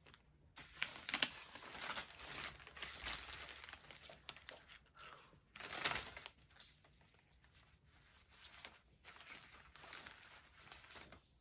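Flower stems and paper rustling and crinkling in irregular bursts as a bunch of baby's breath and rose stems is handled and sorted on a paper-covered table, with a louder rustle about six seconds in.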